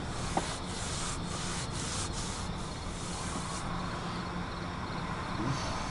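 Road and tyre noise heard inside a moving car's cabin: a steady hiss over a low hum, with a run of faint, evenly spaced ticks in the first few seconds.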